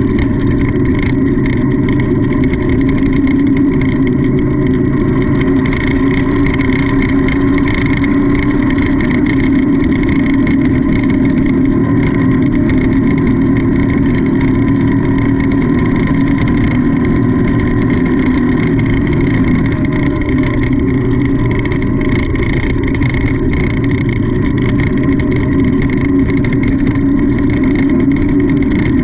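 Off-road race vehicle's engine running hard at fairly steady high revs, heard from on board, with small rises and dips in pitch over a constant rush of noise.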